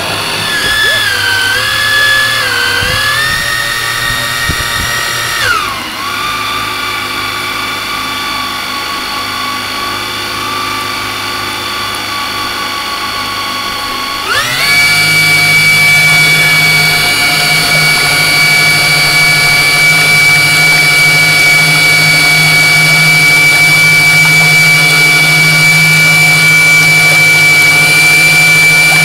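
Fireboat's engine running under way with a high whine. Its pitch wavers and drops about five seconds in, then rises sharply about halfway through as the throttle is opened, and holds steady and louder after that.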